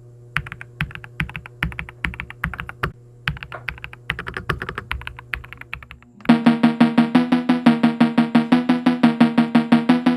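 Typing on a Royal Kludge S98 mechanical keyboard: a quick, irregular run of key clicks for about six seconds. After that, music with a steady beat comes in, louder.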